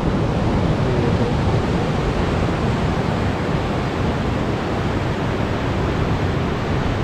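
Steady rushing noise of ocean surf and wind, with no let-up or change.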